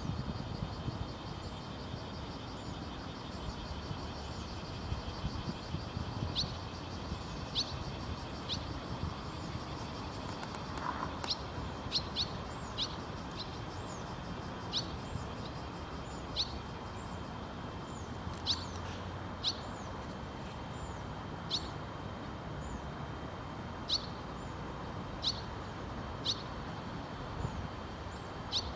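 Young barn swallows on a wire giving short, sharp begging calls, one every second or two, with fainter twittering trills early on. A low steady rumble runs beneath.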